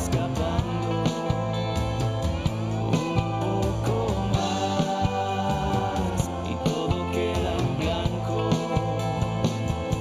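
A band playing a song: guitars over bass and a steady drum beat of about two hits a second, with a voice singing.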